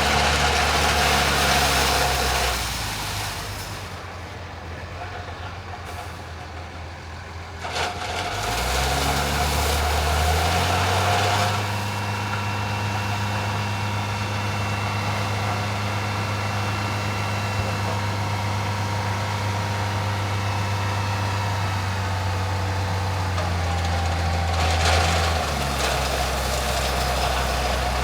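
Heavy diesel truck engine running, with a loud rushing noise in the first couple of seconds. The engine then quietens, revs up, and holds at a steady speed for a long stretch before changing pitch near the end.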